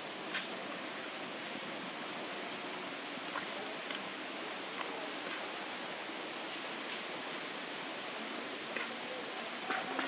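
Steady outdoor hiss with a few short, sharp clicks scattered through it.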